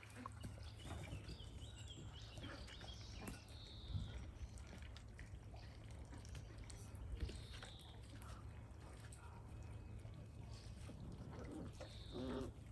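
Faint outdoor ambience of Dalmatian puppies playing on grass and a raised dog bed: scattered light scuffles and knocks over a steady low rumble, with a few short high-pitched chirps and a brief louder low sound near the end.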